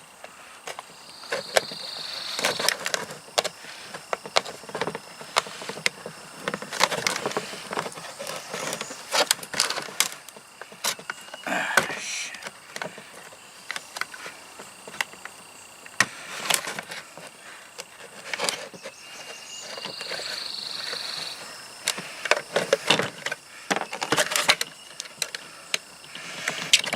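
A knife blade stabbing and scraping into a coffee can to cut out a birdhouse entrance hole, in irregular clicks, knocks and scrapes. Two short high squeaks come through, one about a second in and one about twenty seconds in.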